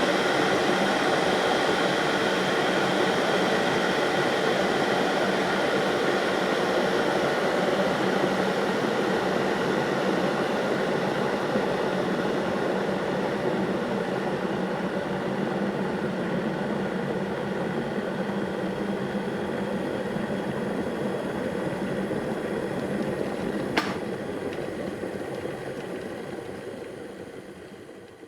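Electric kettle boiling hard, a steady rumbling, bubbling rush that slowly weakens. A single sharp click sounds near the end, typical of the kettle's thermostat switch cutting off, and the boiling then dies away.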